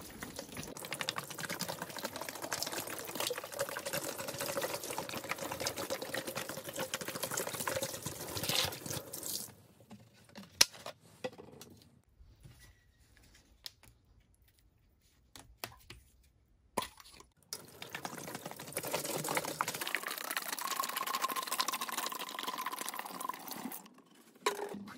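White vinegar poured from a plastic gallon jug into a plastic tub over a rusted steel plate, splashing steadily for about nine seconds. Then comes a quieter stretch with a few sharp knocks and drips, and a second pour of about five seconds near the end.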